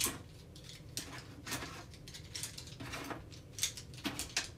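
Pens and other small hard items in a kitchen drawer being handled and sorted, a string of scattered light clicks and clatters.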